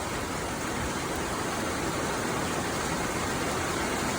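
Steady rain falling, an even hiss that swells a little over the few seconds.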